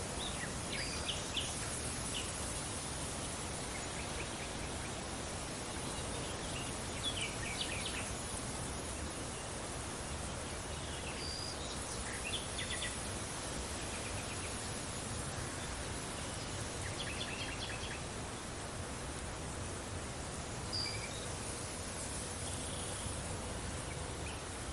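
Steady wind noise with short, high bird chirps and quick chattering trills breaking in every few seconds.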